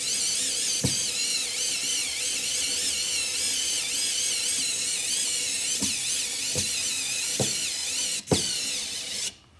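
Small 4-volt cordless screwdriver motor running under load, a high whine that wavers up and down, with five sharp clicks from about a second in; it cuts off suddenly near the end. The screwdriver is straining against a deeply set screw that it won't turn.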